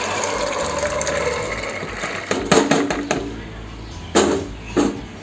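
Soaked black-eyed peas and water poured from a bowl into a pressure cooker, splashing and rattling into the pot and tailing off after about two seconds. A few sharp knocks follow, a cluster about halfway through and two more near the end.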